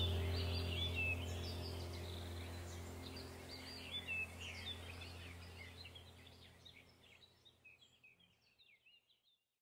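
Ambient background music of a low steady drone with birdsong chirping over it, fading out to silence about seven seconds in.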